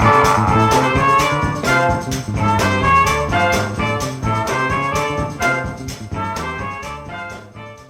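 Background blues music with brass and a steady drum beat, fading out near the end.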